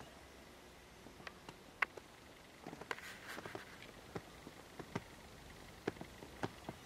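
Faint, irregular clicks and light taps, about a dozen spread out, with a brief rustle about three seconds in.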